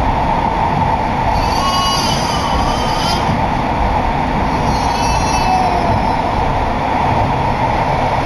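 Cabin noise inside a Yokohama Green Line linear-motor subway car under way: a steady rumble of the running train. Brief wavering high squeals come in about two seconds in and again about five seconds in.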